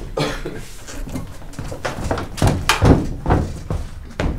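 A run of irregular knocks and clatters, eight or nine in all, as a tall metal ladder is lifted and carried away across a stage; the loudest knocks come about halfway through.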